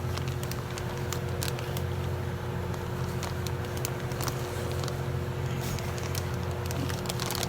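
A steady low mechanical hum, like a motor running, with scattered light clicks and crackles over it.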